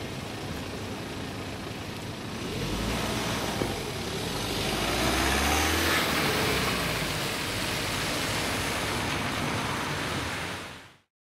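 Cars driving across the crossing on a wet road: a steady hiss of tyres on wet asphalt, with a car's engine passing loudest about halfway through. The sound fades out shortly before the end.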